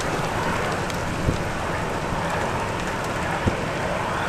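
Steady rush of wind and rain from the tornado's storm, buffeting the microphone, with two short dull thumps, one about a second in and another near the end.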